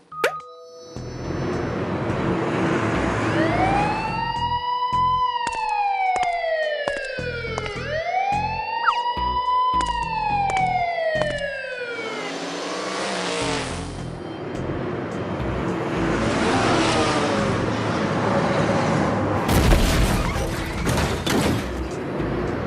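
Emergency-vehicle siren sound effect wailing twice, each wail rising and then falling in pitch, over a noisy engine-like sound. Near the end a loud noisy burst breaks in.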